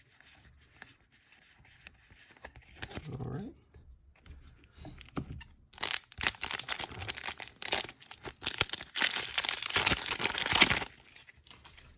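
Foil-lined trading-card booster pack wrapper crinkling and tearing open, loud and dense, starting about six seconds in and lasting about five seconds.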